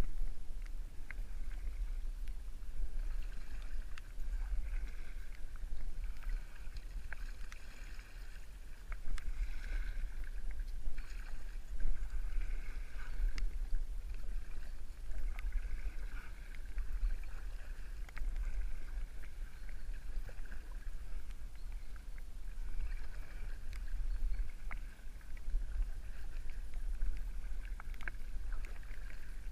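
Kayak paddle strokes: the blades dipping and pulling through calm river water, with small splashes and drips, over a steady low rumble.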